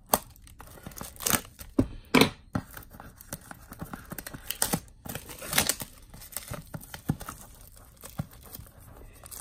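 Packaging on a boxed Blu-ray set being torn and crinkled open by hand: uneven rips and crackles, with the loudest rips just after the start and around two seconds in.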